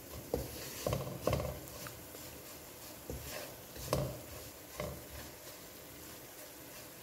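Wooden spatula stirring and scraping semolina roasting in ghee in a non-stick wok, in soft, irregular strokes every second or so.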